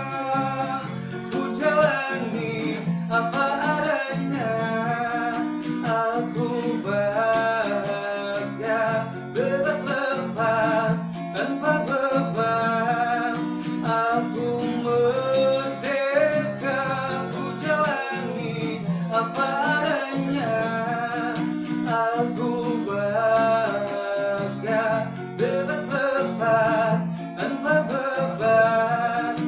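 Guitar playing chords while a man sings a pop melody without clear words.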